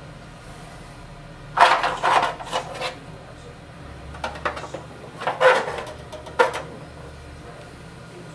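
Aluminium-foil windscreen crinkling and scraping as it is handled and set in place around a moka pot on a small alcohol stove, in two bursts of rustling: one about a second and a half in, another from about four to six and a half seconds.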